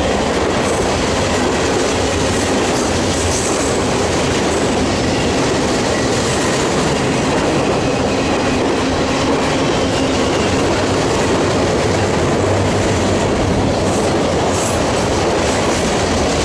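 Freight train cars rolling past, a loud, steady rumble of steel wheels on the rails.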